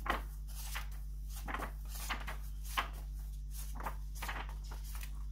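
Pages of a hardcover book being flipped through: a run of quick, irregular paper rustles, a few each second, over a steady low hum.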